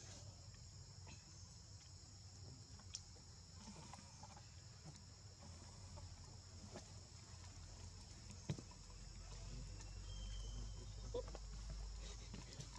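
Faint outdoor ambience: a steady high insect drone with a low rumble, broken by a few soft clicks and rustles.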